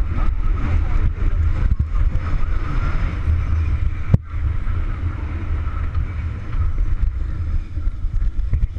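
Wind rumbling on a helmet camera's microphone as a BMX bike rides fast down a dirt track, with a single sharp knock about four seconds in.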